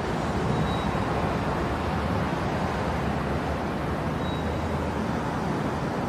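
Metro platform ambience: a steady low rumble under a wash of noise, with two brief faint high tones, about a second in and again about four seconds in.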